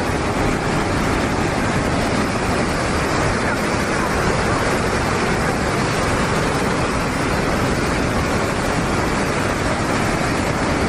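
Raging river rushing through a gorge: a steady, dense rush of whitewater with no break.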